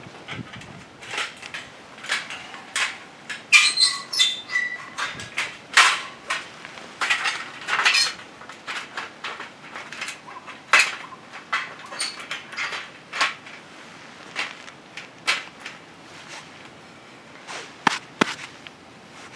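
A run of irregular knocks and metallic clinks from camp gear being handled, several a second. One clink about four seconds in rings briefly; the knocks thin out over the last few seconds.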